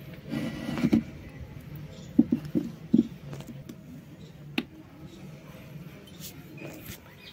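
A large white shale slab being handled and set down on a concrete floor, with a knife laid on it: a short scraping rustle near the start, then a few sharp knocks over about a second, and a single click a little later, over a steady low hum.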